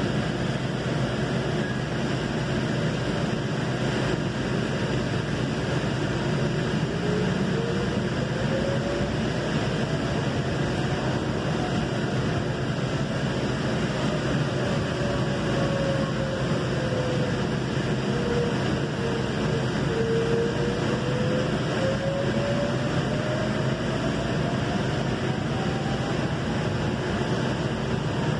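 Valley Metro light rail car running, heard from inside: a steady rumble and hiss, with a faint motor whine that rises in pitch, sinks about two-thirds of the way in, then rises again as the train's speed changes.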